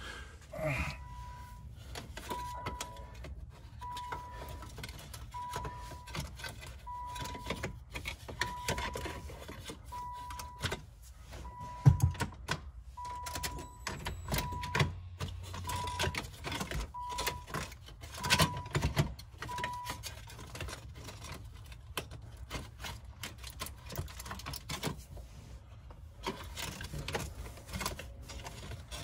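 A car's electronic warning chime beeping at an even pace, about once every second and a half, until it stops about twenty seconds in. Over it come clicks and clunks of the automatic shift lever and its plastic console trim being moved by hand, with a louder knock about twelve seconds in.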